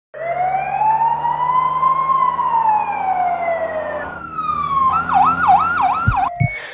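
Ambulance siren: a slow wail that rises and then falls for the first few seconds, switching a little after halfway to a fast yelp of about three sweeps a second, then breaking into short clipped tone blips with a few low thumps near the end.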